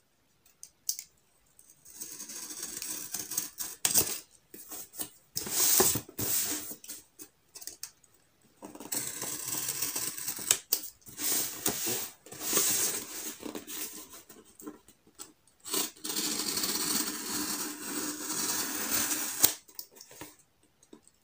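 Packing tape on a cardboard box being slit and scraped open with a pointed tool: irregular bursts of scratching and rasping on the tape and cardboard, with a few sharp taps, starting about two seconds in.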